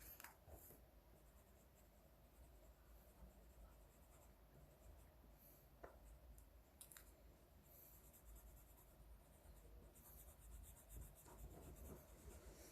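Faint scratching of a drawing tool on paper, with a few soft ticks scattered through.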